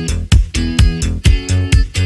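Upbeat instrumental background music with a steady beat, sustained bass and plucked chords, in a funk-like style.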